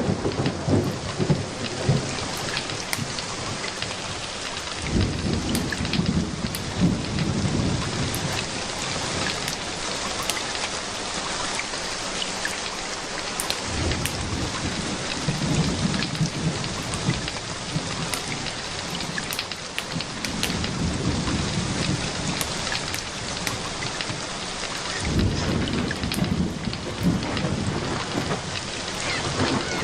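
Steady rain falling and pattering, with low rolls of thunder swelling and fading three times.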